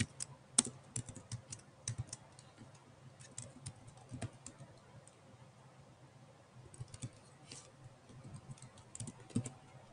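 Typing on a Chromebook laptop's keyboard: quiet, irregular keystroke clicks in short runs with pauses between them, the runs thickest in the first couple of seconds and a lull about halfway through.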